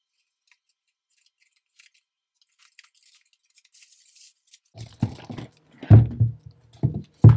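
Packaging and a plastic plant pot being handled: faint rustles and clicks at first, then a run of louder short knocks and scrapes over the last few seconds.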